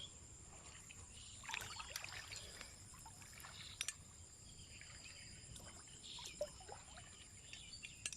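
Faint water sloshing and dripping in the shallow marsh, in a few irregular splashes with a sharp click about four seconds in, over a steady high drone of crickets.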